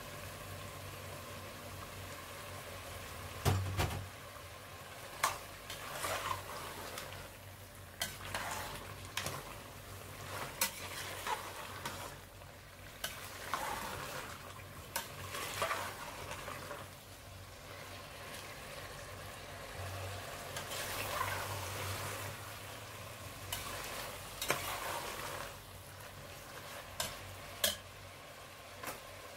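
Metal spoon stirring beef and vegetables in an aluminium pot, with irregular clinks and scrapes against the pot, the sharpest about three and a half seconds in, over the food sizzling faintly.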